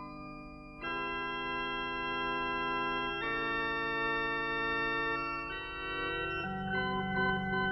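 Instrumental music: sustained organ chords that change every second or two, quieter for the first second before a fuller chord comes in.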